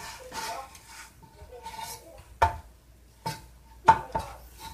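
Chef's knife cutting through an onion and knocking on a wooden cutting board: four sharp knocks in the second half, the loudest near the end.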